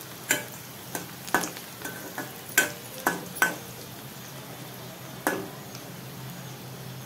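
Metal spoon stirring sliced onions frying in oil in a metal kadai, clacking against the pan about eight times in the first three and a half seconds and once more a little past five seconds, over a steady low sizzle.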